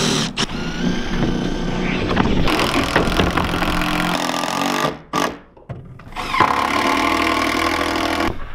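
Cordless drill/driver running in spells as screws are driven into plywood subfloor panels. It stops briefly about five seconds in, then starts again.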